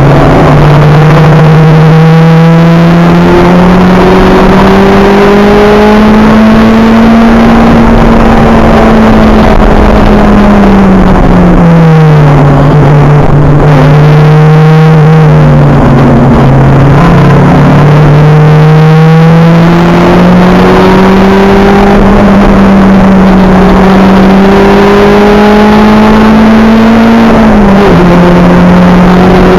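Acura Integra race car's four-cylinder engine heard onboard at full throttle, very loud, its pitch climbing slowly through the revs. Partway through it falls as the driver lifts and slows, then climbs again, with a sudden drop near the end at a gear change. Road and wind noise run underneath.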